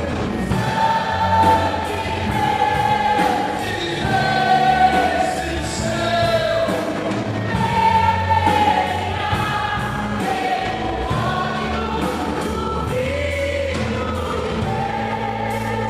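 Choir singing a Portuguese-language gospel praise song, holding long notes over steady instrumental backing with a regular beat.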